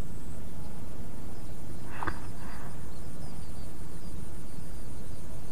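Outdoor ambience: an insect trilling steadily at a high pitch, with a string of short faint chirps, over a steady low rumble. A short sharp sound stands out about two seconds in.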